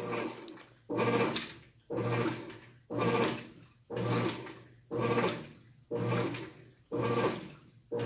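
GE belt-drive top-load washing machine agitating a load: a surge of swishing water and a hum with each agitator stroke, evenly spaced at about one stroke a second.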